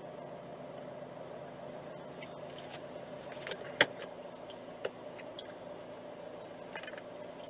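Steady hum inside a stationary car, with a few sharp clicks and ticks in the middle, the loudest a little under four seconds in.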